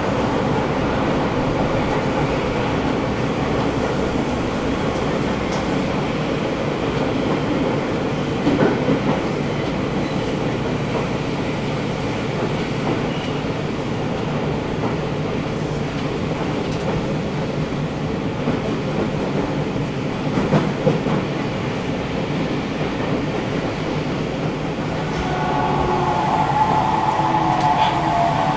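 Sendai Subway 1000N-series train running, heard inside the car: a steady rumble of wheels on rail with a few clacks, and the air conditioning running. Near the end a motor whine comes in and falls in pitch as the train slows.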